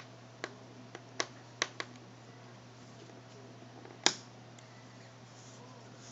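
Small sharp clicks and taps of a tiny Phillips screwdriver and the phone's small screws while the screws are taken out: five quick clicks in the first two seconds, then a louder one about four seconds in, over a steady low hum.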